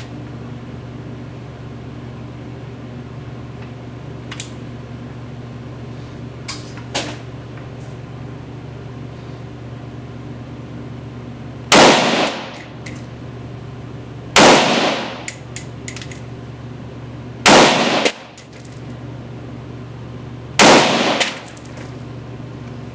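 Four single slow-fire shots from a TPD Steyr AUG-pattern bullpup rifle, about three seconds apart, each with a ringing echo from the indoor range. A few faint clicks come before the first shot, over a steady low hum.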